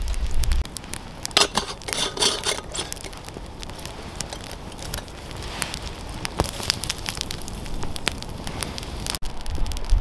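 Small wood campfire crackling and popping in irregular sharp snaps. About a second and a half in there is a brief rustling burst lasting about a second.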